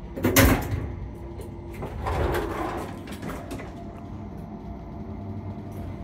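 Passenger lift's automatic doors working: a sharp knock about half a second in, then a longer sliding rush about two seconds in, over the low hum of the lift machinery.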